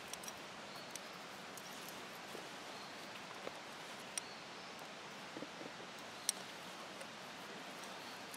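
Scissors snipping through thin leather: a handful of short, sharp snips at uneven spacing, the loudest about six seconds in, over a steady outdoor hiss.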